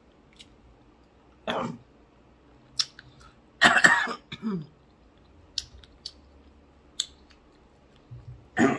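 A woman coughing on too much hot sauce: a short cough about a second and a half in, a louder one near four seconds with a falling groan after it, and another starting right at the end. Small mouth clicks from eating come in between.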